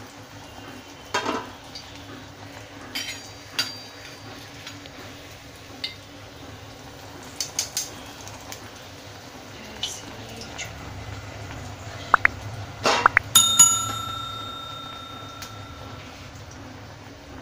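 Ghee sizzling softly under a frying slice of bread, with a few light clinks of utensils. About twelve seconds in come a few clicks and a bell ding that rings on for about three seconds, the sound effect of a subscribe-button animation.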